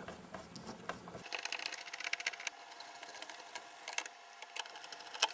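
Screws being driven into a plastic LCD monitor back housing with a screwdriver: a quick, busy run of small clicks and ticks, with one sharper click near the end.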